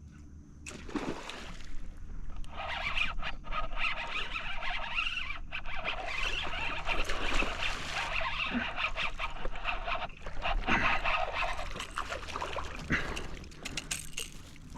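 A large bass striking a topwater lure beside a kayak, with a sudden splash about a second in. A long stretch of splashing and scraping follows as the fish is fought.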